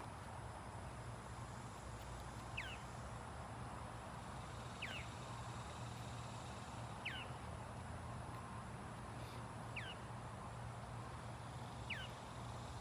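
A bird calling five times: one short note sliding downward in pitch, repeated about every two to two and a half seconds, over a steady low hum.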